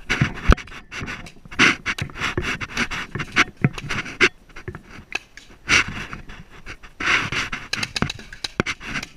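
Heavy panting breaths close to the microphone, with clicks and scrapes from the hand-held camera rubbing against gear.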